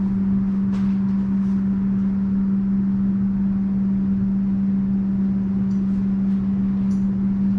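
A steady low machine hum holding one pitch, with a few faint light clicks over it.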